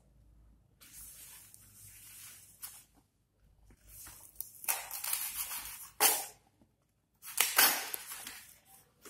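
Dong (Phrynium) leaves rustling and crackling as they are handled, folded and cut with a kitchen knife against a plastic cutting board, in several crisp bursts. The loudest comes near the end.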